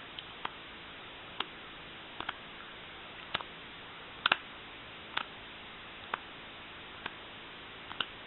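Trading cards being set down one at a time, each making a light click, about once a second, over a steady hiss.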